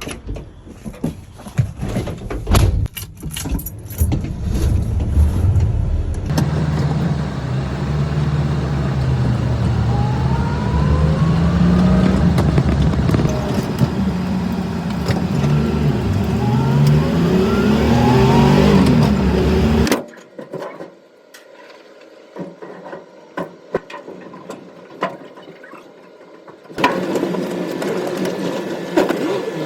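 Clicks and knocks at first, then a vehicle engine pulling away and accelerating, its pitch rising and dropping several times through gear changes. The sound cuts off abruptly about two-thirds of the way in to a quieter stretch with light clicks, and a steady engine sound returns near the end.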